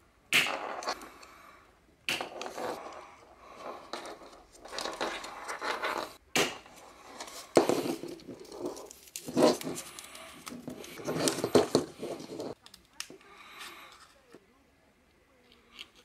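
Plastic PC case fan being taken apart by hand: irregular scraping, rustling and a few sharp clicks as the impeller is pulled out of its frame and the parts are handled. The handling dies down after about twelve seconds.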